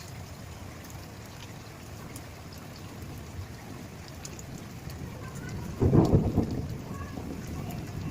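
Steady monsoon rain falling, with a clap of thunder about six seconds in that rumbles and fades over a second or two.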